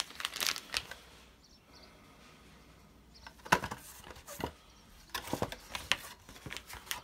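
Clear plastic bag of toilet T-bolts crinkling as it is handled, with a few sharp clicks and crinkles starting about three and a half seconds in.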